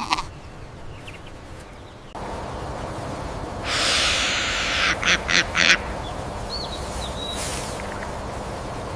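A rush of noise about four seconds in, then four quick sharp animal calls, with two faint high chirps later, over a steady outdoor background.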